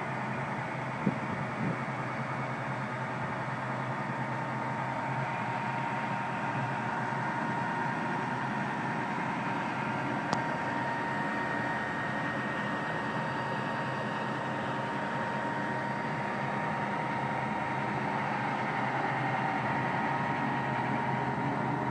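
Wells Wellcutt secondary stone saw's large circular blade cutting through a stone block under water spray: a steady grinding hiss with a faint high whine. A sharp tick sounds about a second in and another about halfway through.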